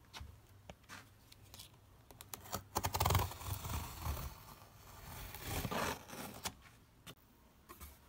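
Box cutter blade slitting the packing tape along a cardboard box, a run of scraping and crackling loudest about three seconds in, with scattered clicks and rustles of the cardboard being handled before and after.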